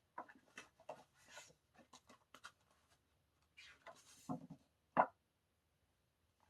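Paper and packaging of a CD album being handled: short rustles and rubbing of pages and inserts, with one sharp tap about five seconds in.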